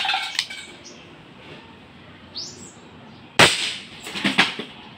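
ASG Dan Wesson 715 CO2 airsoft revolver fired once, a sharp crack a little over three seconds in, followed about a second later by a few quick metallic clinks. A trail of small clicks fades out just at the start.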